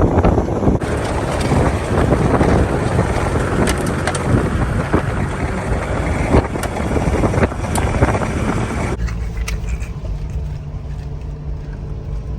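Car driving, with loud road and wind noise and scattered sharp ticks. About nine seconds in the noise suddenly drops to a quieter, steadier low hum.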